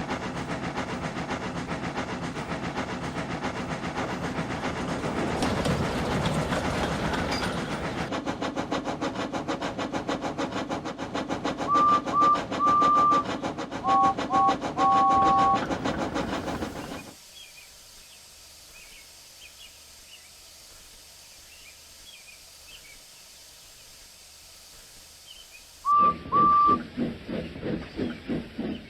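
Steam locomotive sound effects: a steady rhythmic chuffing with hiss, cut by short whistle toots, first three on one higher note, then three on a two-note chord. About two-thirds of the way through the chuffing stops for a quieter stretch of faint outdoor ambience with small chirps. Near the end another pair of whistle toots sounds and the chuffing starts again.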